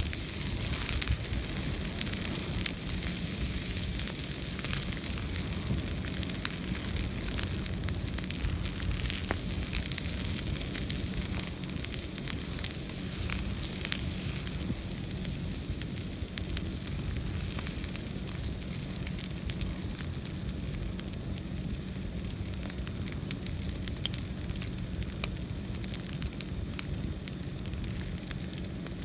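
Brush pile of green, leafy branches burning vigorously: a steady rush of flame with frequent sharp crackles and pops throughout.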